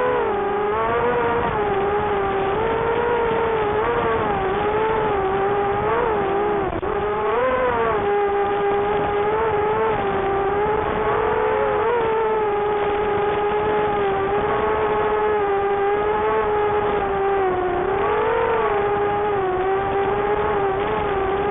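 Racing quadcopter's motors and 4-inch propellers whining steadily, the pitch dipping and rising constantly with throttle changes, with a few bigger swoops.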